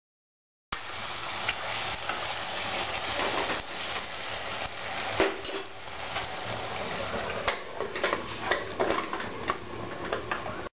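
Metal ladle stirring chicken in a stainless-steel pressure cooker pot, scraping and clinking against the pot over a steady sizzle. A run of sharp metal clicks and knocks comes in the last few seconds.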